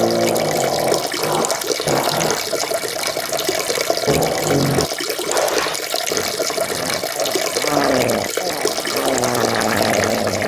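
A farting and peeing sound effect: a loud, steady stream of splashing liquid with low, wavering, pitched fart tones coming and going over it.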